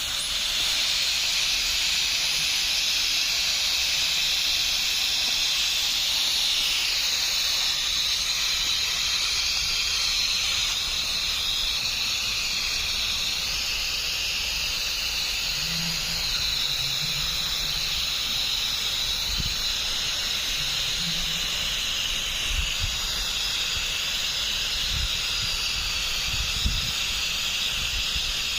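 A steady high-pitched hiss, with a few faint low thumps in the second half.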